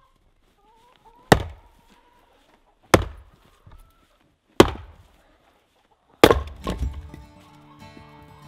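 Firewood being chopped: four heavy strikes into wood, each with a short ringing tail, about a second and a half apart, the last followed quickly by another hit. Music comes in near the end.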